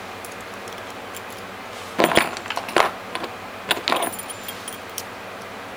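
Small metal pieces clinking and jangling in the hand as a vending machine lock cylinder and its picking tools are handled. The sharpest clinks come in a cluster about two seconds in, then a second group near four seconds and one last click near five seconds.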